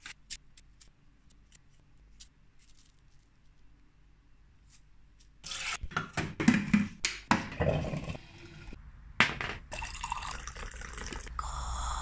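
Drip coffee maker brewing. The first five seconds hold only faint clicks as a paper filter is set in the basket; after that comes louder, irregular gurgling and dripping as coffee runs into the glass carafe, with clicks from handling.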